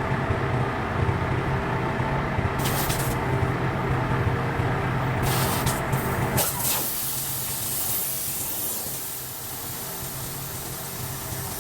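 Compressed air hissing: three short blasts, then a continuous hiss for the second half, over an engine running steadily that fades back about halfway through.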